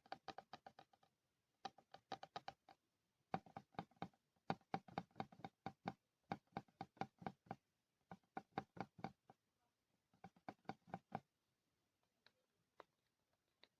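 Fingers tapping quickly on a mirror's glass in runs of rapid taps with short pauses between, each tap with a brief ring. Near the end the tapping thins to a few faint clicks.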